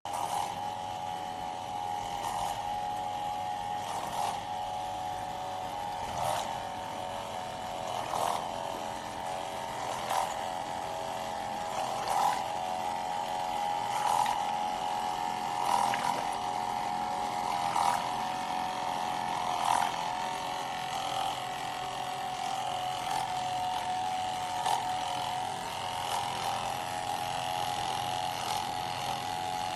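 Small electric pumps of a ceramic-membrane water test rig humming steadily, with water and air bubbling in the tank. A brief tick comes about every two seconds.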